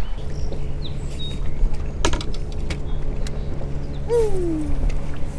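Bow-mounted electric trolling motor humming steadily over wind and water rumble, with a sharp knock about two seconds in and a short falling whine about four seconds in.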